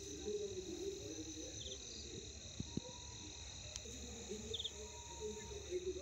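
Night insects such as crickets trilling steadily at two high pitches, with low, indistinct sounds underneath and two soft knocks a little past the middle.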